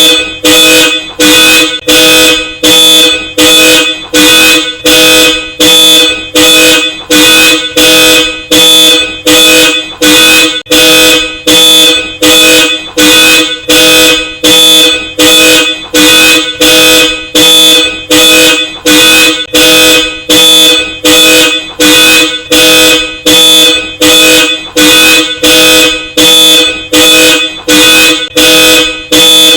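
Car alarm blaring through a Hella Supertone twin horn: loud, evenly repeated honks of a two-note chord, about three every two seconds.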